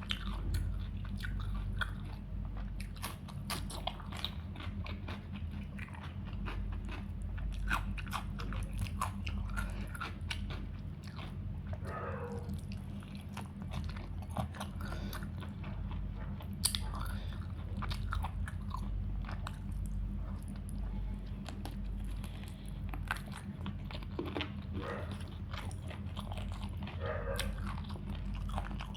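A person chewing and biting a meal of chicken curry, rice and salad close to the microphone: wet chewing with many short crunchy clicks, over a steady low hum.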